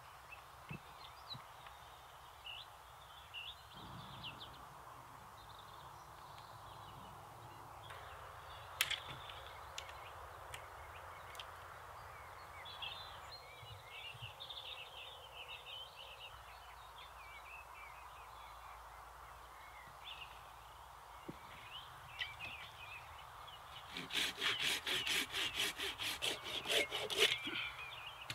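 Small birds chirping and singing in the background. Near the end a folding pruning saw cuts through a branch in quick, even strokes, about four a second, for a few seconds.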